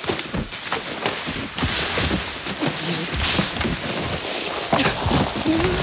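A man crashing and tumbling through dense ferns and undergrowth: continuous loud rustling and snapping of foliage, broken by many short knocks and thuds of his body hitting the ground.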